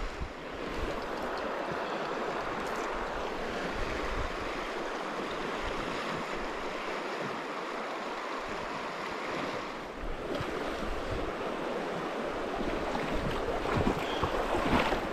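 Shallow, riffled Bighorn River current rushing steadily around the wading angler, with a brief dip about ten seconds in.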